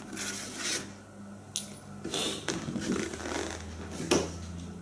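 A hand rubbing and sliding over a paper target on a table, in a few short rustles, with a sharp click about four seconds in.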